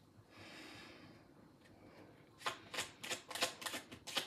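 Tarot deck being shuffled by hand: a soft sliding rustle at first, then from about halfway through a quick run of crisp card snaps, several a second.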